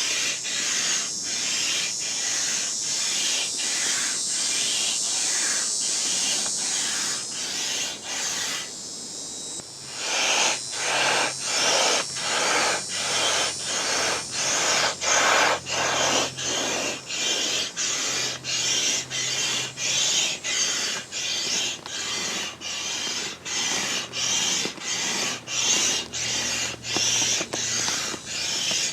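Air pump inflating a large vinyl pool toy: a rushing hiss of air in regular strokes, a bit more than one a second, pausing briefly about nine seconds in and then coming louder.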